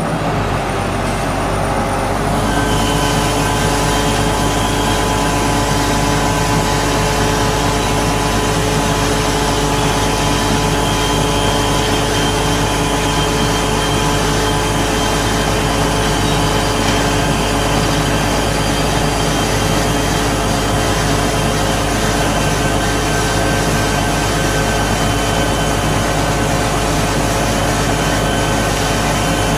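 Diesel engine and hydraulics of a crawler-mounted hydraulic piling rig running steadily, with a steady high whine above the engine note. A brighter hiss comes in about two seconds in.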